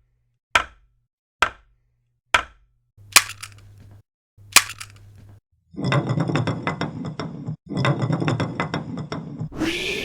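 Sharp knocks, about one a second, then a few seconds of dense, rapid clattering, ending in a rising swoosh.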